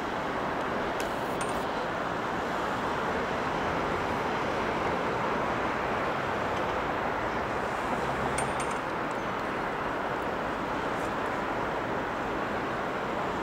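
Steady airport background noise: an even hiss and rumble with no clear engine note, broken only by a couple of faint ticks.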